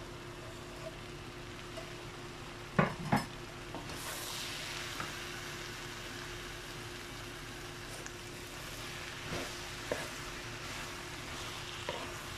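Cut okra and green chillies sizzling in hot oil in a frying pan while a wooden spatula stirs them. The sizzle grows louder about four seconds in. Two sharp knocks come about three seconds in, over a faint steady hum.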